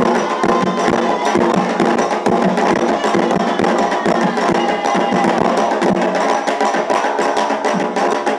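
Afro-Brazilian Candomblé ritual percussion: hand drums playing a fast, steady rhythm with a sharp, clacking struck percussion line over them, dense and continuous.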